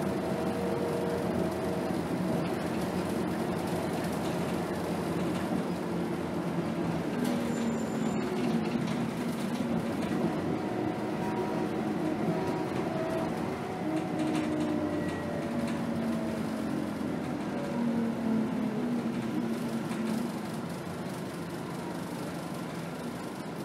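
Cabin noise inside a 2010 Scania K280 city bus under way: engine and driveline drone with tones that rise and fall as the bus speeds up and eases off, over road noise. There is a sharp click about eight seconds in, and the noise drops off near the end as the bus slows.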